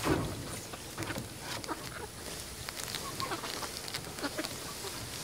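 Hens clucking in short, scattered calls inside a chicken tractor as it is dragged across clover, with a knock near the start.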